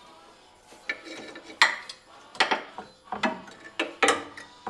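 Steel hand wrench clinking and clanking against brake-line fittings and the underside of a Jeep: about half a dozen irregular sharp metallic knocks with brief ringing, the loudest about a second and a half in.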